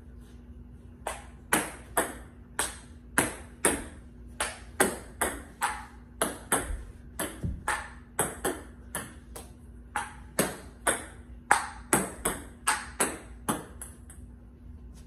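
Table tennis rally: a plastic ball clicking sharply back and forth off the paddles and the table, two or three ticks a second. It starts about a second in and stops near the end, over a faint steady hum.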